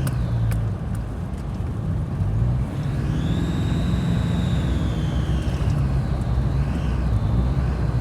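Turbocharged car engine revved while parked, with a high-pitched whistle that rises with the revs about three seconds in, holds, then falls away as the revs drop; a shorter, fainter whistle comes near the end. The whistle is the fault being shown, which comes up at higher revs.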